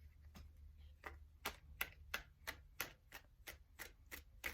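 A deck of tarot cards being shuffled by hand, a soft run of quick clicks about three a second.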